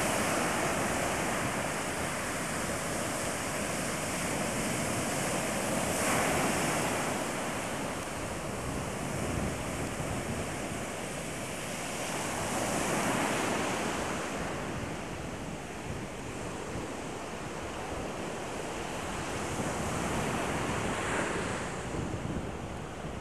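Surf breaking on a sandy beach, the wash swelling and easing about every seven seconds, with wind noise on the microphone.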